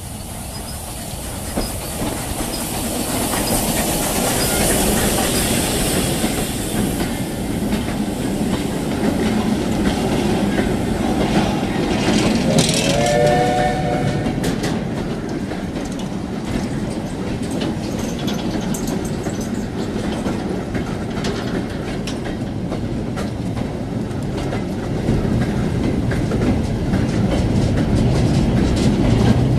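J94 0-6-0 saddle-tank steam locomotive passing with a goods train: a hiss of steam as the engine goes by in the first few seconds, then the wagons rolling past with a steady clatter and clicking of wheels over the rail joints. A brief wavering high tone sounds about halfway through.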